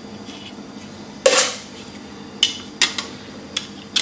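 Metal offset spatula scraping and clinking while smoothing ice cream mixture in a cake ring: one longer scrape about a second in, then a few short sharp clinks.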